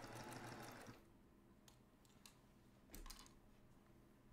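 Domestic sewing machine stitching through a pieced quilt block, stopping about a second in; then a few faint clicks.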